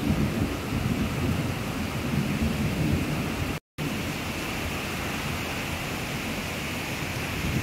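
Thunderstorm: a low rolling rumble of thunder over a steady hiss of rain and wind. The sound cuts out for a split second about three and a half seconds in, and after that the rumble is weaker.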